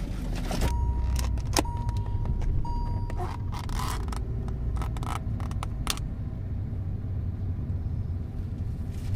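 A thin plastic carry bag rustling and a clear plastic takeaway lid crackling and clicking as it is pried off a food container. Under it runs a low steady rumble from the car. The crackling stops about six seconds in, leaving only the rumble.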